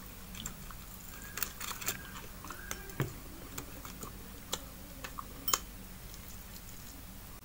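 Eating sounds of fried fish picked apart and eaten by hand: scattered small clicks and mouth smacks as the flesh is pulled off the bones and chewed, over a steady low hum.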